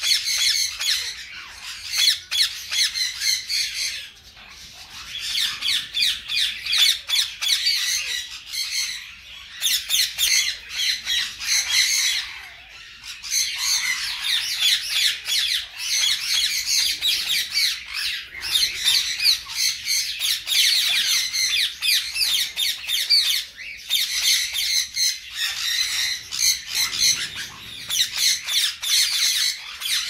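Many caged parrots squawking and screeching at once in a near-continuous, high-pitched chorus, with brief lulls about four seconds in and again near the middle.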